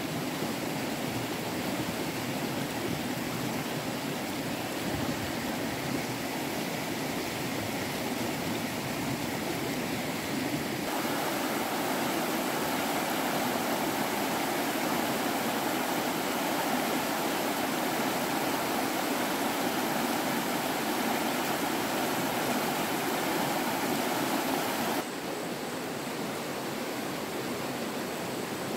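Stream water rushing steadily, its sound changing abruptly about eleven seconds in and again near the end.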